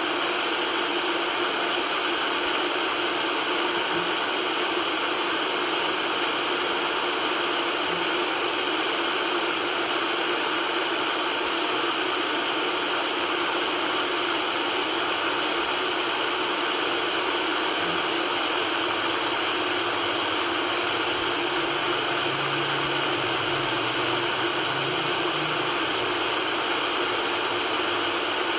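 Steady white noise: an even, unbroken hiss with little bass, played as a sleep sound to calm a colicky baby.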